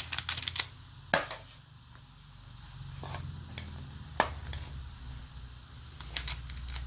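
Sharp clicks and taps of a metal cookie scoop dishing out balls of peanut butter cookie dough onto a parchment-lined sheet pan: a quick cluster of clicks at the start, single clicks about a second in and about four seconds in, and a few more near the end. A low steady hum runs underneath.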